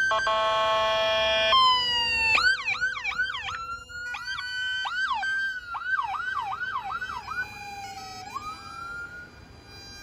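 Police vehicle sirens sounding. A steady horn-like blast lasts about the first second and a half, then rapid rising-and-falling yelp sweeps follow, slowing to a low tone that rises again near the end.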